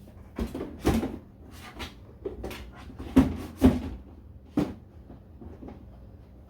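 Irregular knocks and clunks of pantry items and containers being handled and set down on shelves, about eight in all, the loudest a close pair about three seconds in.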